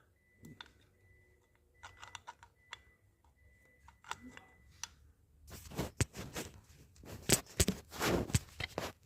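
Small metal parts of a Suzuki GT250 carburettor clicking and rattling as the carb slide is handled and worked into the carburettor body: a few light clicks at first, then a dense run of sharp clicks and knocks from about halfway.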